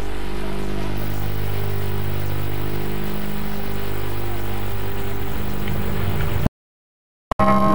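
A steady low electrical hum with a buzzy edge, playing over tape hiss from an old video transfer. It cuts off suddenly about six and a half seconds in, and after a short silence piano music begins right at the end.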